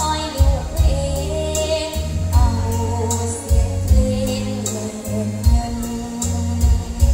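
A girl singing a luk thung (Thai country) song into a microphone over an amplified backing track, with a steady drum beat about twice a second and a bass line.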